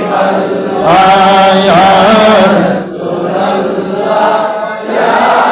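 Male voices chanting a devotional refrain in long, drawn-out notes that glide up and down, over a steady low tone.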